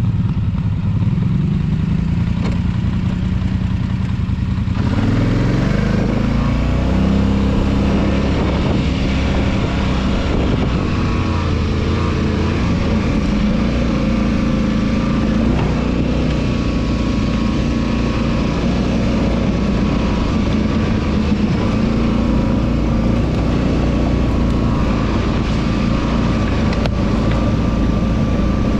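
ATV engine accelerating, rising in pitch about a second in and again about five seconds in, joined by a rush of riding noise. It then runs steadily at speed.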